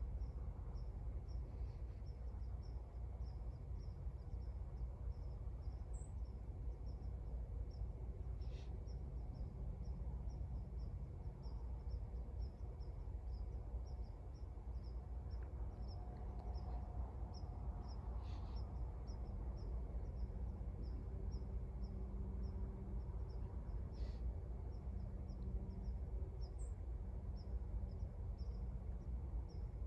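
Outdoor background at a railroad crossing: a steady low rumble, with a faint high chirp repeating about twice a second and a faint low drone in the second half.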